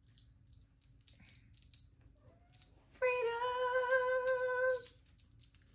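A few faint light clicks, then a voice sings one long held note for nearly two seconds, starting about three seconds in.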